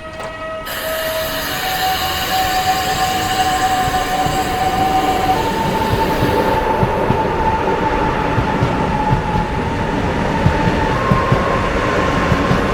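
Ivolga electric train accelerating. Its traction drive sings a steady whine that jumps up in pitch in several steps, over growing rumble and wheel noise. Short rail clicks come more often near the end.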